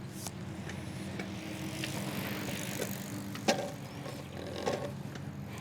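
Longboard wheels rolling on pavement, a steady rumble with a swell of hiss about two seconds in and a couple of sharp clacks near the middle.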